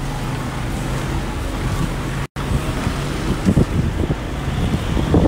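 Car driving slowly along a rough dirt track, heard from inside with the window open: a steady engine and road hum. The sound cuts out for a moment a little over two seconds in, and in the second half uneven low gusts of wind buffet the microphone.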